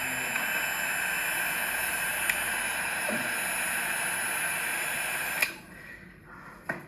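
Fire alarm bells ringing steadily on a school fire alarm system, then cutting off suddenly about five and a half seconds in.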